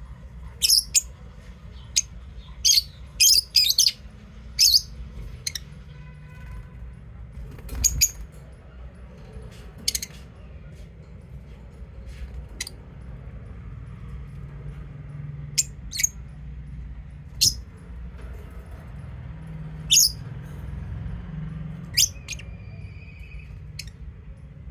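Lovebirds giving short, sharp, high-pitched chirps at irregular intervals, several in quick succession in the first few seconds and sparser after that, over a steady low hum.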